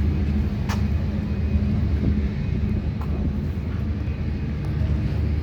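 Steady low engine rumble, with one sharp click about a second in.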